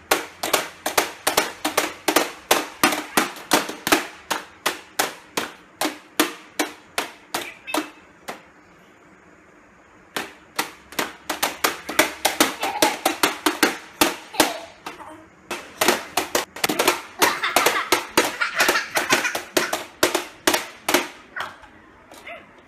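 Plastic toy hammers pounding the pop-up moles of a children's whack-a-mole game board: rapid sharp plastic taps, about three a second. They stop for about two seconds midway, then start again.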